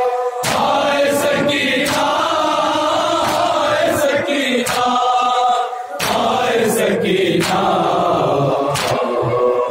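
Men's voices chanting an Urdu mourning noha in unison, cut through by repeated sharp slaps of hands striking bare chests in matam.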